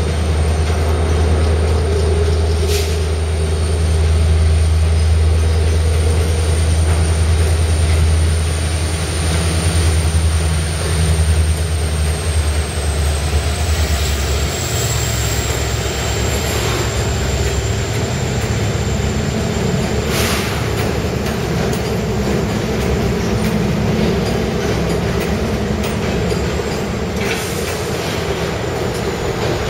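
Train rolling past at close range with steady wheel-on-rail noise. A low drone fades about halfway through, a faint high whine slowly drops in pitch, and a few sharp clicks sound from the rail joints.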